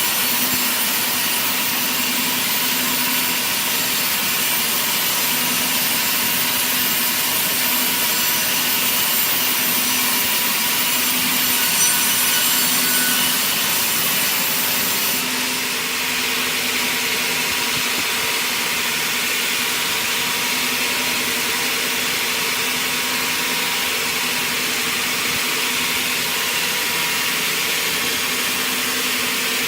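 Circular sawmill blade running and cutting through wood, a steady loud sawing noise. About halfway through, the sound changes abruptly to a slightly different steady sawing noise.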